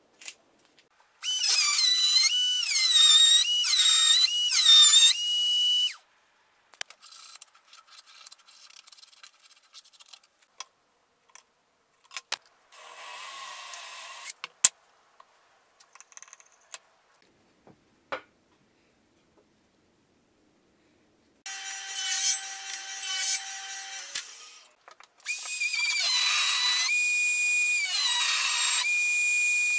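Ryobi trim router spinning at speed and cutting an edge profile on a plywood block: a loud high whine whose pitch dips again and again as the bit bites, in long bursts near the start and near the end. In the middle, a cordless drill briefly bores a hole through the plywood.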